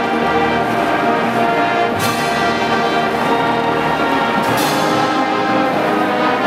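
Brass band music playing held chords, with two sharp crashing accents about two seconds and four and a half seconds in.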